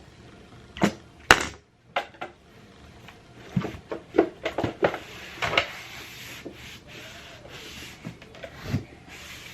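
Handling noises: a series of irregular knocks and clicks over a faint rubbing, the loudest a sharp knock just over a second in.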